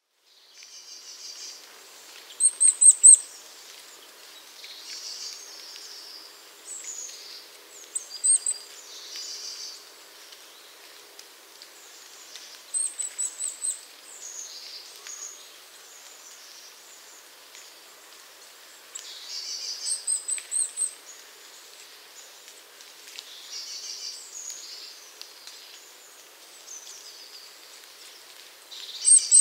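Birdsong from several birds. A quick run of very high, thin chirps recurs every several seconds over softer, varied calls.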